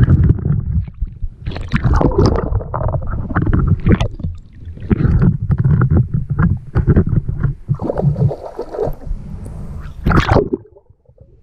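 Water sloshing and splashing around a camera held at the surface as a swimmer moves through shallow water, in choppy irregular surges. There is a sharp splash about ten seconds in, and then the sound drops off suddenly.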